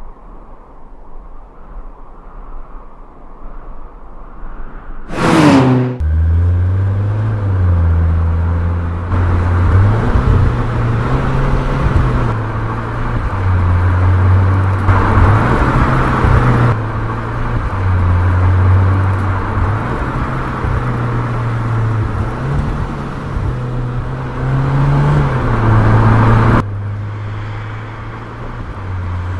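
Alfa Romeo MiTo Quadrifoglio Verde's 1.4 MultiAir turbo four-cylinder engine and exhaust under acceleration, its note rising and dropping with the gear changes. It starts faint, and a quick falling whoosh about five seconds in leads into the loud engine sound, which changes abruptly several times.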